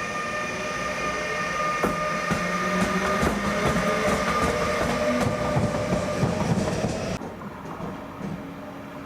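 A train rolling through the station, its wheels knocking over rail joints and points in a run of clatter, over steady high whining tones. The clatter and the high sound cut off abruptly about seven seconds in.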